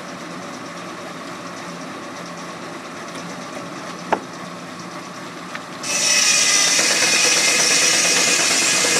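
Sawmill saw running with a low hum and a sharp knock about four seconds in; about six seconds in the blade starts cutting into the log and a loud, steady rushing hiss of sawing takes over.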